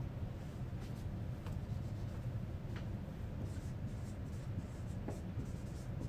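Dry-erase marker writing on a whiteboard, a few short strokes heard over a steady low room hum.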